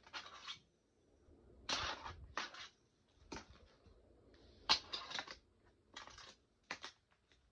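A fingerboard scraping over small ramps and a ledge: a series of short, irregularly spaced scrapes as its trucks grind and its wheels roll.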